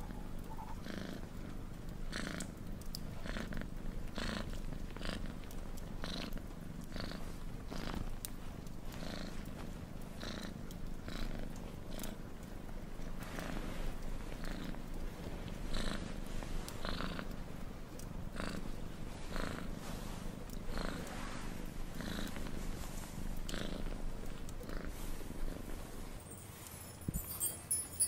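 Domestic cat purring steadily, the purr swelling and easing in even cycles about once a second.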